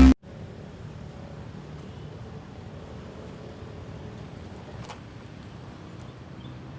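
Steady outdoor background noise with a faint low hum, possibly wind or a distant engine, and one short click about five seconds in.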